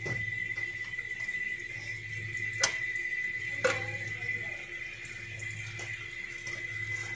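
Engine oil trickling and dripping from the oil filter mount as the spin-on oil filter is unscrewed by hand. A steady low hum and a thin high tone run underneath, and two light knocks about a second apart come midway.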